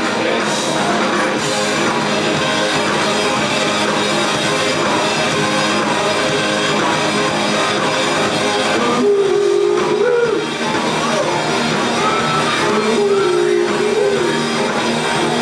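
Rock band playing an instrumental passage between sung lines, dense and steady, with a few held melodic notes over the full band.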